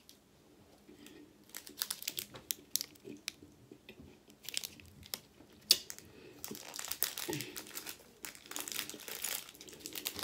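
Plastic candy-bar wrapper crinkling in the hand, in scattered short crackles that grow denser in the second half.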